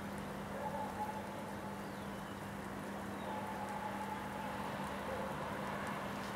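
Insulation of a heavily overloaded Cat 4 data cable sizzling and crackling as it smokes from overcurrent heating, a steady rain-like crackle with a low steady hum underneath.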